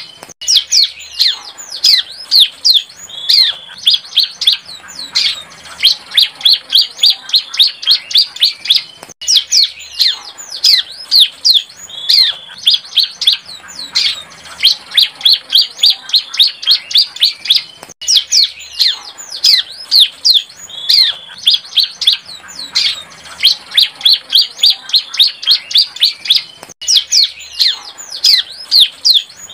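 A young bar-winged prinia (ciblek) practising its song: a fast, unbroken run of sharp, high chirps and quick slurred notes, in a phrase that repeats roughly every nine seconds.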